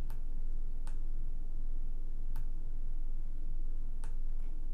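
Low steady hum of room or microphone noise, with four faint, short computer mouse clicks spread through it.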